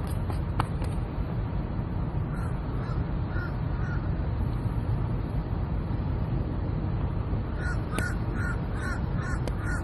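Crows cawing in short harsh calls: a few scattered caws, then a quicker run of about three a second near the end. A steady low rumble runs underneath.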